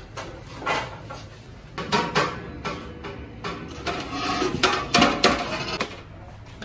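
Irregular clatter, scraping and knocking of cookware around a huge steel biryani pot, with a cluster of sharper knocks about two seconds in and again around five seconds in.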